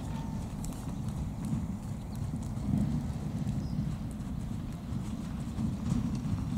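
Hoofbeats of a young bay filly trotting and cantering loose on a rubber-chip arena surface, up to and over a jump near the end.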